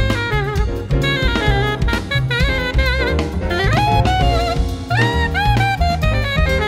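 Jazz band recording: an alto saxophone plays a busy lead line of quick notes with bends and slides, over a drum kit and bass.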